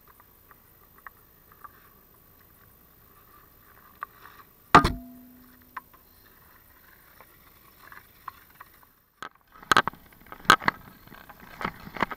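Hockey skates scraping on lake ice, faint at first. About five seconds in comes one loud, sharp knock with a brief ring, a stick or puck striking something hard. From about ten seconds on, close skate strokes cut and scrape the ice in quick succession.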